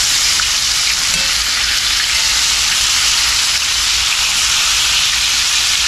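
Chicken pieces frying in a shallow layer of melted shortening in a cast iron skillet: a steady sizzle.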